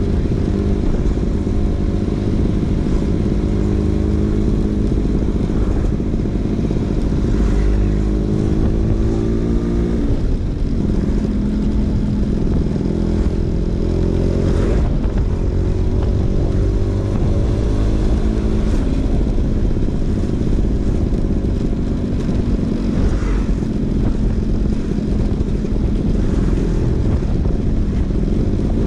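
Vespa PX 150's single-cylinder two-stroke engine running through a DRC Victory Racing aftermarket exhaust while riding. The engine note dips and then climbs again about ten seconds in, and again around fifteen seconds in.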